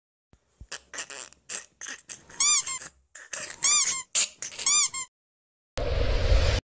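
Cartoon sound effects: a string of short high squeaks, three of them rising-and-falling chirps, then near the end a burst of noise lasting just under a second.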